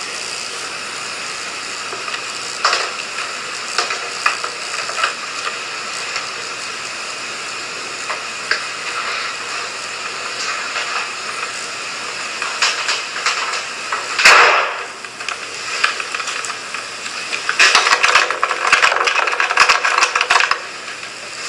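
Home video playing back through laptop speakers: a steady hiss with scattered faint knocks and clicks, then one loud bang about two-thirds of the way through, taken as a door slamming shut by itself, followed by a few seconds of clattering and rustling.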